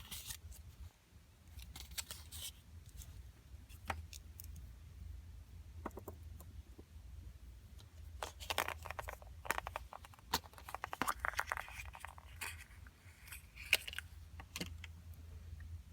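Small plastic gacha toys and their capsule packaging handled close to the microphone: scattered clicks and taps, with a run of rapid clicking and crinkling about two thirds of the way through. A steady low hum lies underneath.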